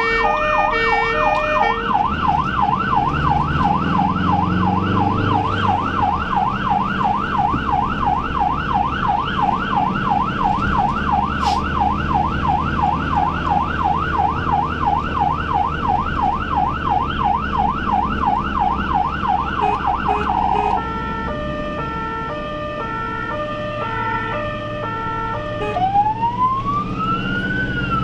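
Ambulance's electronic siren on an emergency run, heard from inside the cab over the engine and road noise. It sounds a fast yelp, rising and falling about three times a second, switches about twenty seconds in to an alternating two-tone hi-lo, and near the end changes to a slow rising-and-falling wail.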